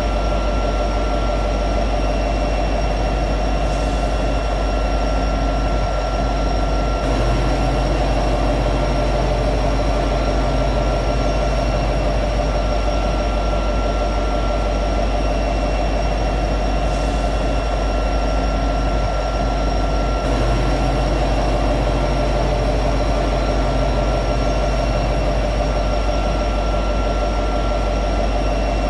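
EMD SD70ACE diesel-electric locomotive's 16-cylinder two-stroke 710 engine running steadily at high idle while the locomotive stands still.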